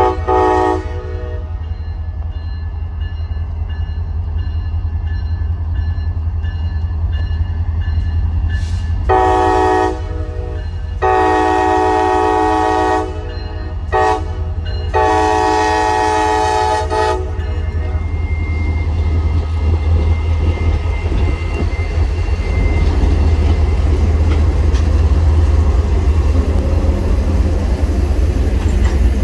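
Freight train diesel locomotives sounding the horn in the grade-crossing pattern, long, long, short, long, about nine seconds in after a brief blast at the start, over the steady low rumble of the diesel engines. The rumble grows louder as the locomotives pass close by, with wheels running on the rails near the end.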